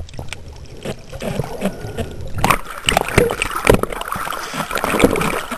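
Waterproof camera underwater picking up muffled water sound and knocks, then breaking the surface about two and a half seconds in, with choppy sea water splashing around it.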